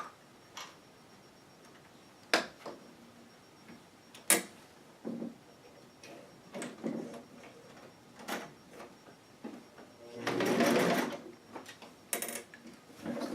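Singer Stylist 418 zigzag sewing machine: scattered clicks and knocks as the work is handled and nudged, then, about ten seconds in, a roughly one-second burst of the machine stitching fast. It is struggling to feed through thick layers of material and leather.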